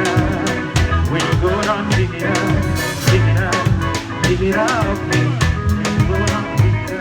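Live band playing an instrumental passage, with the drum kit to the fore: quick, even snare and kick strokes over a steady bass line and melody instruments.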